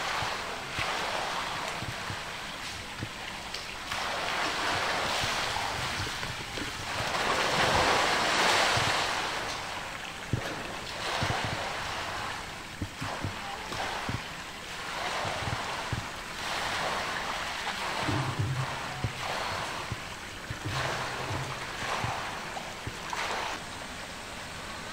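Pool water splashing and sloshing as a polar bear wades and swims through it, in swelling surges, loudest about eight seconds in.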